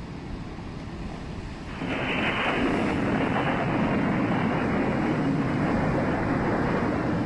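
Heavy storm waves breaking against a harbour breakwater: a low rumble, then about two seconds in a sudden loud rush of water that holds steady.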